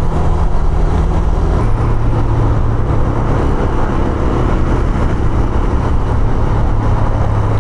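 Honda CB 150F single-cylinder motorcycle engine running while riding along at speed, with steady wind and road noise. About a second and a half in, the engine note drops to a lower pitch.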